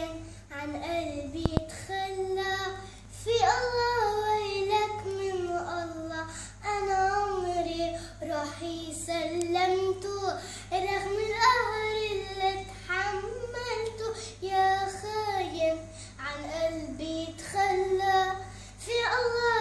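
A young girl singing a song, unaccompanied, in phrases with short breaks between them.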